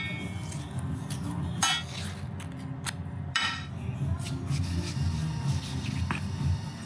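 Metal clinks of a melon baller knocking against a small stainless steel pan as melon balls are scooped into it, two ringing clinks about a second and a half and three and a half seconds in. Later a few light knocks of a knife cutting melon rind on a plastic cutting board, all over a steady low hum.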